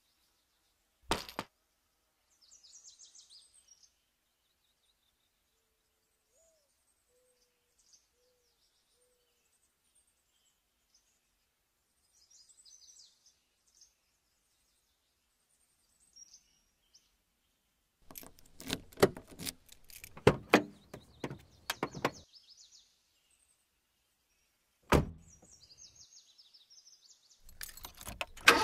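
Faint birds chirping. Then a run of clicks and knocks as a Toyota Corolla's door is opened and someone climbs in, followed a few seconds later by one sharp slam of the car door. Near the end there is a rattle of keys at the ignition.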